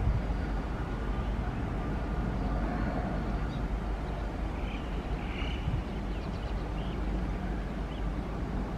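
Indian Railways WAP-class electric locomotive approaching slowly, a steady low rumble, with a few faint high chirps about five seconds in.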